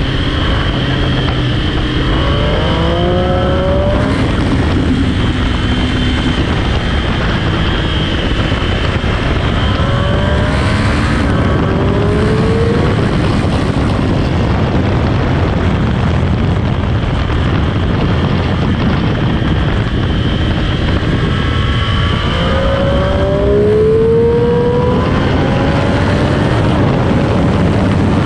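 Sport motorcycle engine running hard on track, its pitch climbing through the revs several times as it accelerates, under a steady loud rush of noise.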